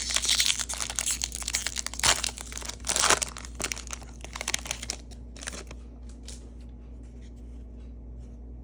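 A 2024-25 Panini Hoops basketball card pack being torn open, its wrapper crinkling and tearing for about five seconds, loudest about three seconds in, then dying down to faint rustling as the cards come out.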